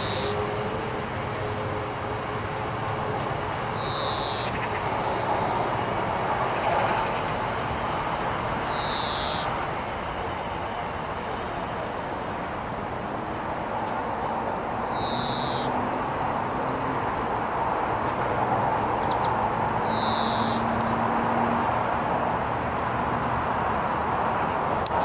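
A bird repeating a short falling call about every four to six seconds, over a steady rushing noise.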